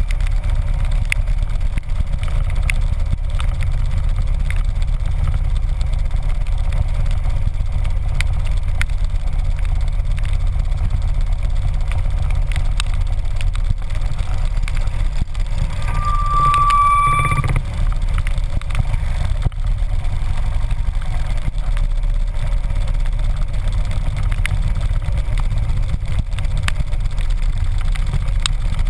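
Harley-Davidson V-twin motorcycle engine running with a steady low rumble, mixed with wind noise. About halfway through, a short steady high beep sounds for about a second.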